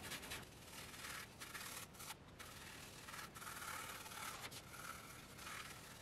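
Flat bristle brush scrubbing acrylic paint onto a canvas panel: a faint, steady run of scratchy rubbing strokes.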